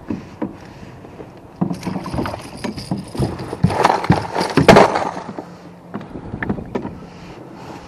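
Handling noise as a caught trout is swung aboard a kayak in a fish lip gripper and set down on the floor mat: a busy run of knocks, taps and rustling, loudest about two thirds of the way through, with a few scattered knocks before and after.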